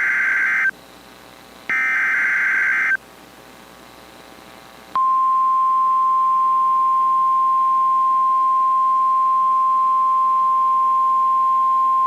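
NOAA Weather Radio alert signal: two loud buzzing SAME data header bursts, each about a second long with a short pause between. Then, about five seconds in, the steady single-pitch 1050 Hz warning alarm tone starts and holds, the signal that a warning message is about to be read.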